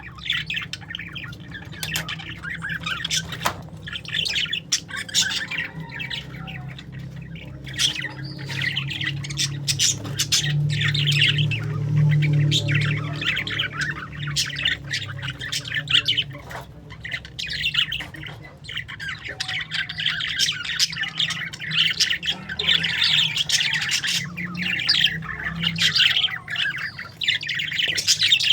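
A group of parakeets chattering continuously, overlapping chirps and squawks with no pause, over a low steady hum.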